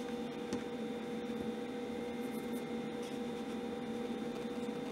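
Steady faint electrical hum made of several even tones, with faint scraping and small clicks from hands handling the circuit board.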